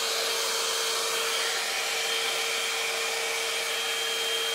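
Head Kandy Commitment Issues hot-air blow-dry brush running: a steady rush of blown air with a steady hum underneath.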